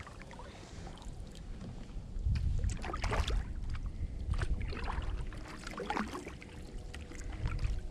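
Kayak paddle strokes splashing and dripping in calm water, about once a second, over a low wind rumble on the microphone.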